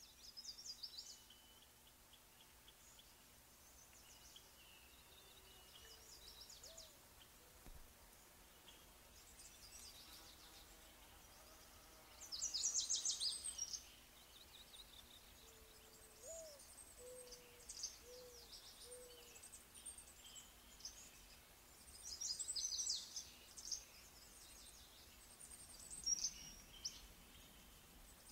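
Faint birdsong: repeated bursts of fast, high chirps and trills, with a few low short calls in between, over a faint steady hum.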